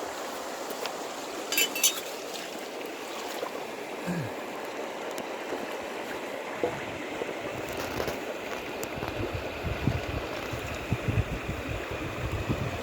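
Steady rushing, like flowing stream water, with two light clinks about a second and a half in; low wind buffeting on the microphone in the second half.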